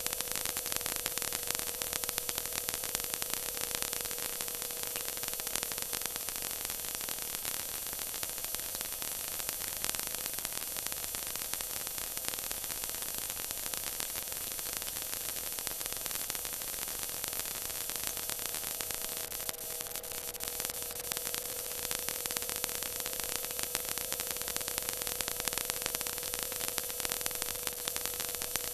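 Stock race car running at speed, heard from inside the car through an onboard camera as a steady hiss with a constant engine tone underneath.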